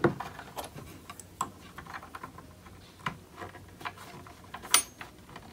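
Light, scattered clicks and taps of metal against wood: a hand router plane being set down and a small metal butt hinge being fitted into its freshly cut mortise in the cabinet. The sharpest taps come just after the start and again near the end.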